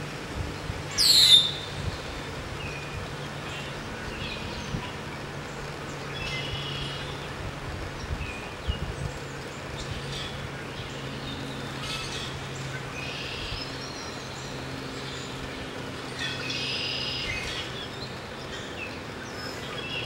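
Wild birds calling and chirping, with one loud falling whistle about a second in, over a steady low hum.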